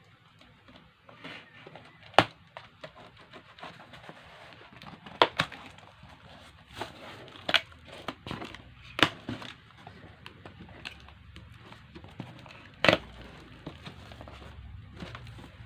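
Packaging being handled while unboxing: rustling and crinkling with several sharp knocks and clicks scattered through.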